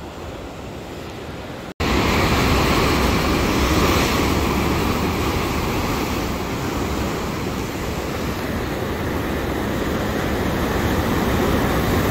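Heavy ocean swell surging and breaking against a rock shelf, heard as a steady wash of surf with wind rumbling on the microphone. It jumps abruptly louder about two seconds in.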